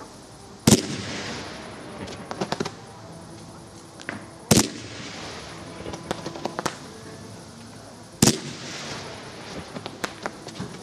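Large fireworks display going off: three loud bangs about every three and a half to four seconds, with smaller crackling pops between them.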